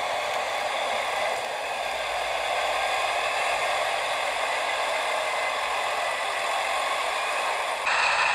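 Model train running on a layout: motor whirring and wheels clattering on the track as a model KiHa 283 express set passes. The sound is steady and gets suddenly louder near the end.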